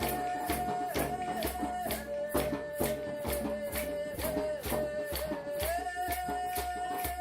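Improvised music: a didgeridoo drones and pulses low in rhythm while a shaker keeps an even beat of about three strokes a second. Over them a single held high note steps down in pitch about two seconds in and returns to its first pitch near the end.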